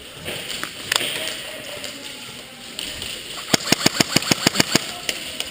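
Airsoft gun firing a rapid string of about ten shots over a little more than a second, after a single sharp shot about a second in.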